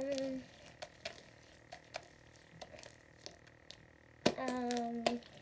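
Sticky slime being mixed with activator, making scattered small wet clicks and pops. A short hummed voice sound at the start and a longer held one near the end.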